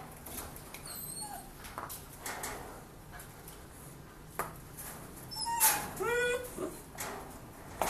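A dog whimpering: a sudden sharp cry a little past halfway, then a quick run of short whines that bend down and up in pitch. Soft knocks and handling noise come and go around it.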